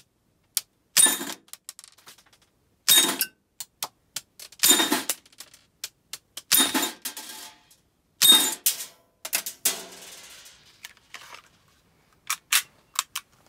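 MGC Glock 17 Gen2 gas-blowback airsoft pistol with a silencer firing five shots a little under two seconds apart, each a sharp report with a short metallic ring as the slide cycles. Lighter metallic clicks and ticks follow, with a few sharper ticks near the end.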